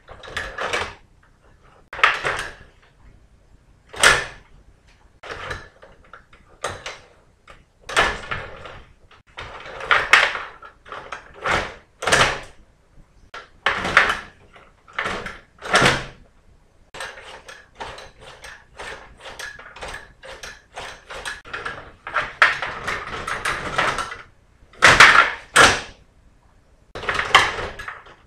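Stiga rod table hockey game clattering: the metal rods are pushed, pulled and spun, rattling through the plastic board, with sharp knocks of the plastic figures and puck. The bursts come irregularly, one every second or two, busier in the second half and loudest near the end.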